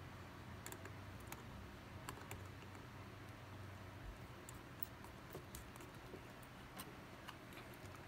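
Faint, irregular small clicks and ticks from a screwdriver and small screws being worked into a laptop's case.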